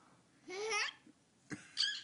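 A baby babbling in short bursts: one rising sound about half a second in, then a brief high squeak near the end.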